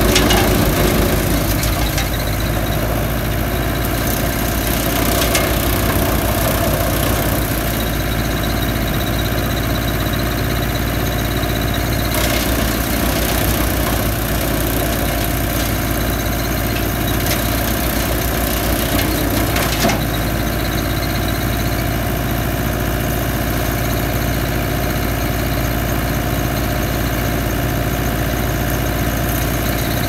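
Schliesing Premier 440EX tracked wood chipper running steadily, engine and chipper drum turning over without load, a little louder in the first two seconds. A single sharp knock about twenty seconds in.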